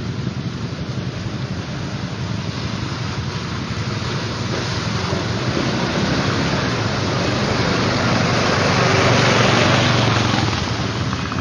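Quad bike (ATV) engine running as it drives through a muddy pool, churning through the water. It grows louder as it nears, peaking about nine seconds in, then eases off.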